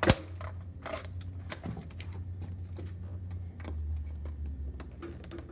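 Scattered clicks, taps and scrapes of a screwdriver and fingers prying a key membrane's adhesive off a console panel, with a sharp click at the start. A low hum runs underneath.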